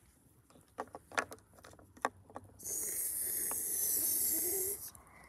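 A person's mouth hiss imitating a cat hissing, held steady for about two seconds in the second half. Before it, a few light clicks of plastic figurines set down on wood.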